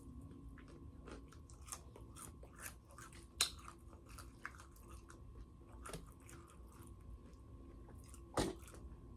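Close-miked chewing of crispy fried chicken: scattered wet mouth clicks and small crunches, with two louder bites, one about three and a half seconds in and one near the end.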